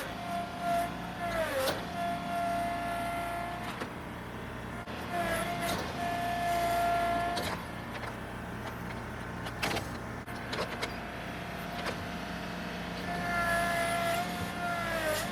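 Tractor engine working hard under load with a high hydraulic whine over its hum; the whine sags briefly in pitch several times as the tractor strains against the tree. A couple of sharp knocks come about two-thirds of the way through.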